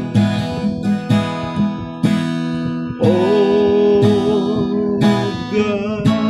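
Music: an acoustic guitar strumming chords, with a long wavering held note over it from about halfway in.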